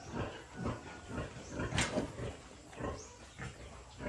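Pigs grunting: a run of short, irregular grunts, a few each second, with a sharper, louder one about halfway through.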